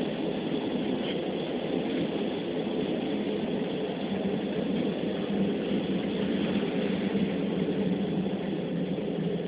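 Steady running noise of a passenger train heard from inside the carriage while it is moving, with a low hum that grows slightly stronger about halfway through.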